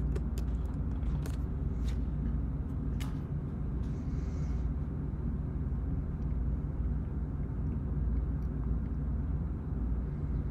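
Steady low background rumble, with a few faint clicks in the first three seconds.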